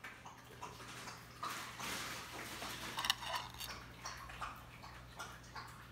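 Light clicks and short scrapes of kitchen dishes and utensils being handled, busiest in the middle with one sharper click about three seconds in, over a steady low hum.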